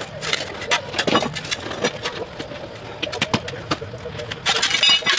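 A steel spade scraping and knocking against soil and a concrete paver in a run of short, irregular strikes, with a louder, ringing scrape near the end.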